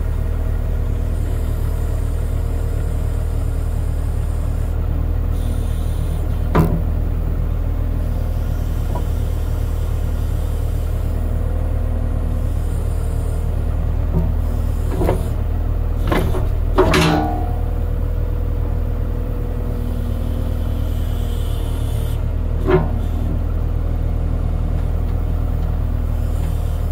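Backhoe engine running steadily, with a few sharp metal clanks and knocks, the loudest a cluster about 15 to 17 seconds in, as its bucket is brought up to the dozer's track idler wheel.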